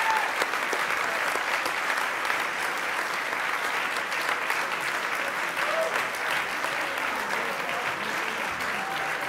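Large audience applauding steadily: a dense patter of many hands clapping.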